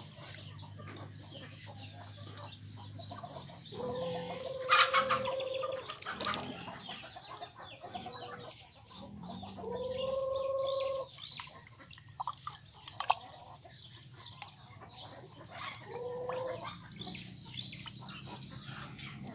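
Chickens clucking, with three drawn-out calls, the longest about ten seconds in, and a few sharp clicks in between.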